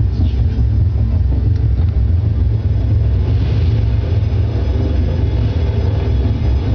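Military helicopter flying, a loud, steady, heavy rotor and engine rumble, from a film soundtrack.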